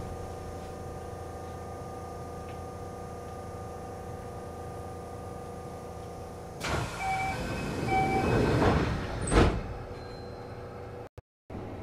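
Kintetsu 5800-series train standing with a steady electrical hum. About seven seconds in its sliding doors close: a rush of noise from the door gear, a two-note chime sounding twice, then a single thump as the doors shut.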